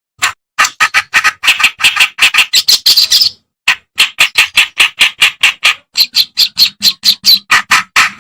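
A reed warbler (kerak basi) singing a fast run of harsh, chattering notes, about five or six a second. It starts just after silence and breaks off briefly near the middle.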